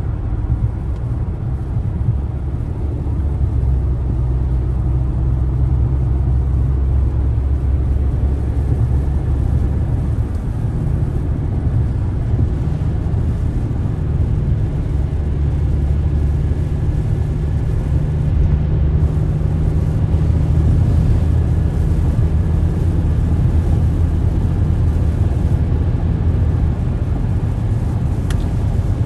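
Steady low rumble of a car driving at highway speed, heard from inside the cabin: road and engine noise with no marked changes.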